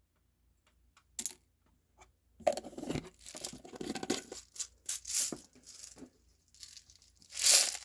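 Plastic packaging being handled: a brief crinkle, then a few seconds of irregular rustling and crinkling, with a louder burst near the end.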